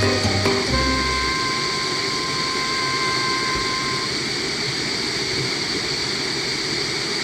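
Background music ending on a few held notes that fade out by about four seconds in, leaving a steady rushing noise.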